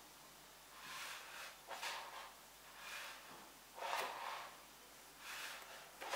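Pages of a large hardcover art book being handled and turned: a run of soft paper swishes about once a second, with one sharp crisp tick about four seconds in.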